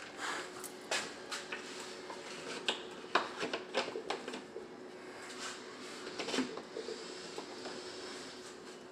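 Scattered light clicks and knocks, about a dozen spread unevenly, over a faint steady hum.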